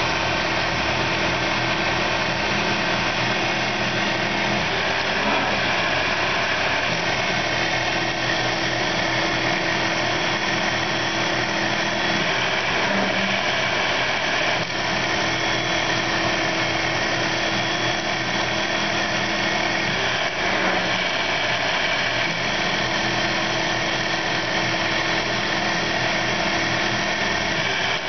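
CNC mill running a rotary broach tool as it plunges into a metal part, broaching a 3/8 in square: a steady mechanical running sound with several held tones. A hum in it drops out briefly a few times.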